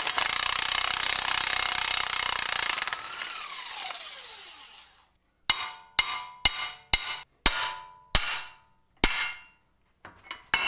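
A power tool runs for about three seconds on the tie rod end's stud nut, then winds down with a falling whine. Seven ringing hammer blows follow on the steel steering knuckle of the Dana 60, knocking the tie rod end's tapered stud loose, with metal clinking near the end.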